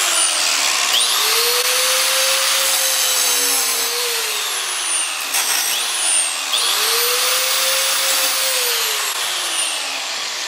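Angle grinder grinding into an iPhone 6's casing: a harsh, steady grinding hiss. Twice, the motor's pitch rises and then sags as the disc is worked against the phone.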